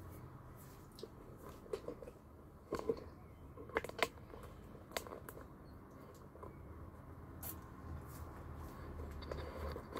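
Quiet background with a faint steady low hum and a few scattered short clicks and ticks.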